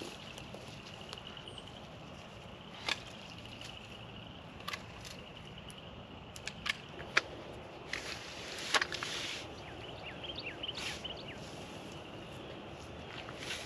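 Long-handled bypass loppers cutting through young saplings: a series of sharp snips and snaps at irregular intervals, with woody stems cracking.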